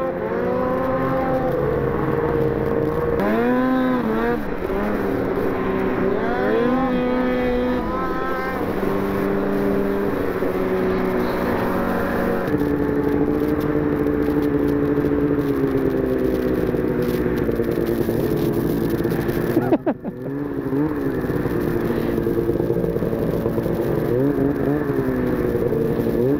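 Snowmobile engines running hard, the pitch rising and falling repeatedly with the throttle, holding steadier through the middle. The sound dips sharply for a moment about three-quarters of the way through, then revs up again near the end.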